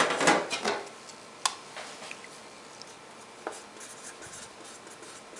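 Handling of a removed sheet-metal equipment cover: a few loud scraping rustles in the first second and a sharp click about a second and a half in. Then faint scratching as the inside of the cover is marked, so that the matching top and bottom covers can be told apart.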